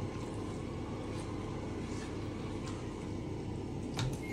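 A steady low hum, with a few soft taps as raw fish pieces are dropped by hand into a pot of fried masala. A sharper knock, the frying pan against the pot, comes near the end.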